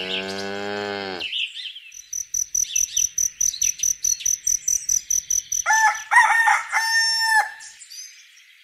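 Farmyard sound effects. A pitched call opens, then a steady high trill with quick, even ticks. About six seconds in, a rooster crows in short notes ending in a longer held one.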